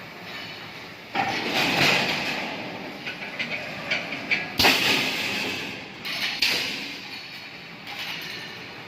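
Wire mesh welding machine working: noisy mechanical bursts starting about a second in, with a sharp clank about four and a half seconds in and another burst soon after.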